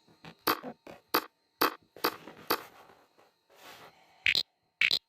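A series of short, irregular clicks from a phone's touch-sound app, one for each tap on the screen, with sharper, brighter ones near the end.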